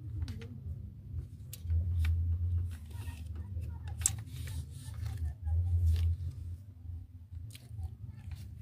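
Scattered light clicks and taps of metal timing-chain parts being handled and fitted on the engine, over a low hum that swells every few seconds.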